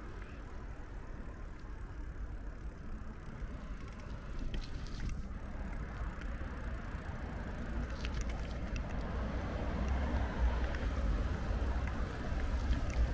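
Outdoor street ambience with the low rumble of traffic, growing louder from about eight seconds in.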